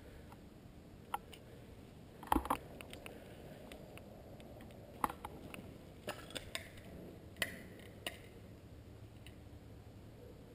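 Scattered light clicks and knocks at uneven intervals over a faint steady hiss, the loudest a quick double knock about two seconds in.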